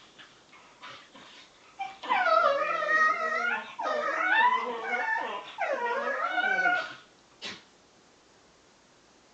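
Bedlington terrier making strange whining vocalizations in play: a run of loud, drawn-out cries that waver up and down in pitch for about five seconds, starting about two seconds in. A few light clicks come before, and one sharp click near the end.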